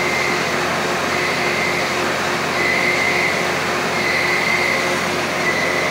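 CNC lathe running with flood coolant spraying against the inside of its enclosure window: a steady hiss with a faint high whine, during a threading cycle on the part.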